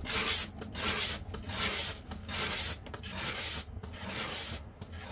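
Large round board being turned by hand on a paint-pouring spinner, scraping and rubbing in repeated uneven strokes, about two a second. The board is oversized and doubled up on the spinner, which is why it rubs so noisily.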